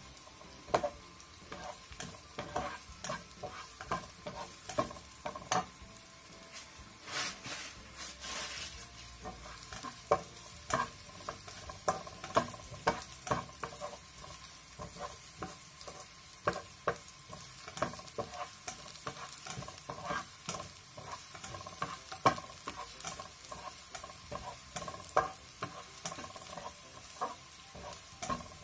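Sliced shallots frying in oil in a nonstick pan, stirred with a spatula: a soft sizzle under repeated sharp taps and scrapes of the spatula against the pan, with a louder spell of sizzling about seven seconds in.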